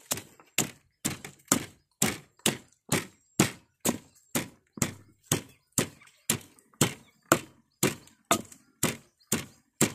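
Wooden pestle pounding fresh red chilies in a mortar, a steady rhythm of dull thuds about two per second.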